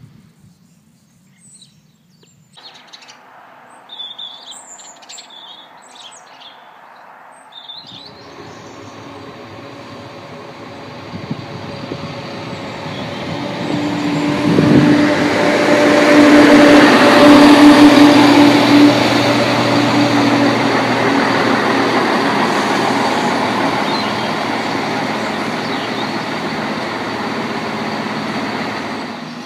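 Birds chirping over quiet, then a Class 170 Turbostar diesel multiple unit approaching, its noise building from about a quarter of the way in to its loudest around the middle, with a steady whine. It then eases off gradually but is still running near the end.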